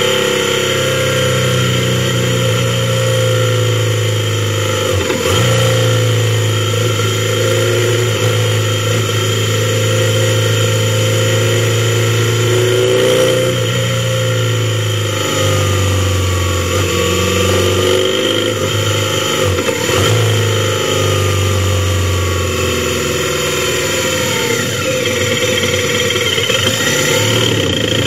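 Motorcycle engine running at road speed, picked up by a helmet-mounted camera, over a steady rushing noise. The engine note drops and picks up again a few times, about five seconds in, around fifteen and twenty seconds, and near the end.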